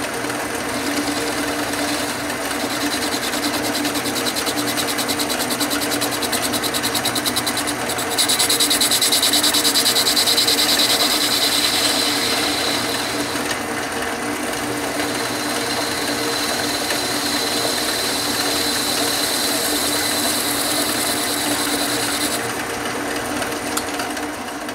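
Atlas metal lathe running with its motor and belt drive humming steadily while the tool takes a facing cut across the end of the stock. A high hiss from the cut comes in about eight seconds in, dips briefly, and stops a couple of seconds before the end.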